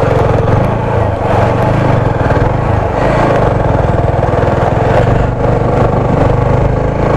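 TVS Apache 4V motorcycle's single-cylinder engine running at a steady speed while riding, with wind rushing past the rider-mounted microphone.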